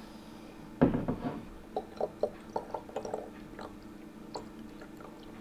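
A knock about a second in, then Monkey Shoulder Smokey Monkey whisky glugging as it is poured from its bottle into a small glass sample bottle, a run of short gulps about three or four a second that thins out.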